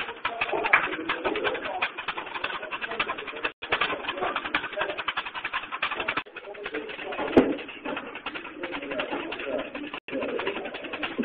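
A long flexible bar strapped to a foot being shaken rapidly back and forth, giving a fast, continuous fluttering rattle with weight-room background. It breaks off for an instant twice, where the clips are cut.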